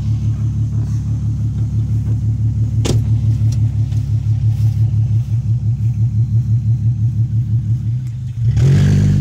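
Volkswagen Jetta GLI engine idling through a straight-piped exhaust, a steady low pulsing rumble. A single sharp click comes about three seconds in, and near the end the engine note rises and gets louder.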